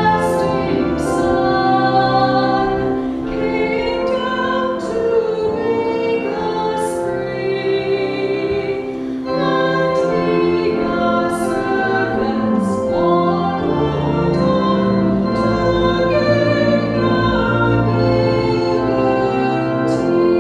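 Church organ playing held chords under a woman's solo voice singing a hymn.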